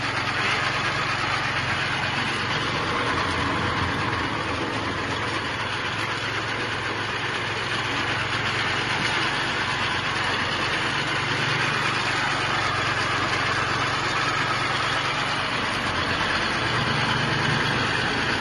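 Cashew-apple separating machine running steadily, driven by its 6 HP kerosene/petrol engine.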